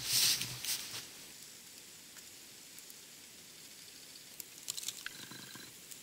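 Wood fire in a small stove crackling faintly, with a few scattered clicks. A brief crunching rustle comes in the first second.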